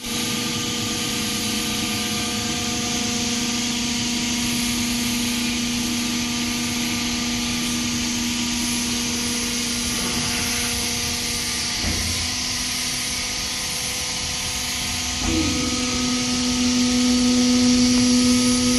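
Industrial machinery running steadily, a continuous hum with a wide hiss over it, typical of a running tunnel furnace and its blowers. Two brief knocks come about twelve and fifteen seconds in, and the hum grows a little louder after the second.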